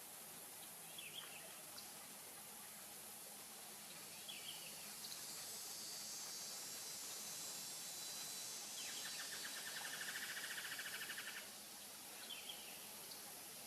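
Swamp ambience: a steady high insect hiss with a few short chirping calls. About two-thirds of the way in comes a rapid rattling call of roughly ten pulses a second, lasting about two and a half seconds; it is the loudest sound.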